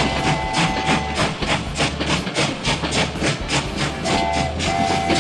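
Electric train horn sounding a two-note chord: one blast that stops about a second in, then a short toot about four seconds in and a longer blast right after it. Under it runs a fast, even clickety-clack of wheels on rail joints.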